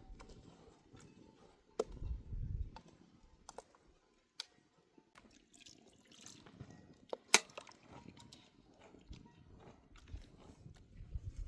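Scattered sharp clicks and knocks at uneven intervals, the loudest about two-thirds of the way in, with a few low thuds.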